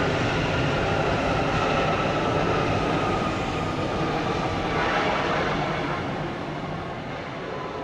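Jet engines of a Boeing 757 airliner rolling along the runway: a steady rush of engine noise with a faint whine, fading out over the last couple of seconds.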